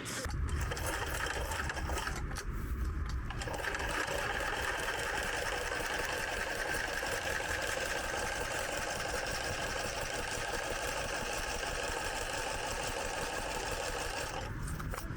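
Electric sewing machine stitching continuously at a fast, even pace. It changes tone a few seconds in and stops near the end.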